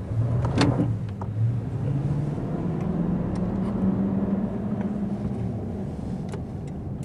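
Toyota Tundra's 5.7-litre V8 pulling away, heard from inside the cab: the engine note climbs over the first four seconds as the truck accelerates, then eases a little. A sharp click about half a second in.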